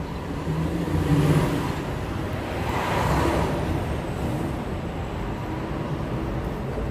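City street traffic: cars and other vehicles passing, with a steady rush of road noise that swells as vehicles go by about a second in and again around three seconds.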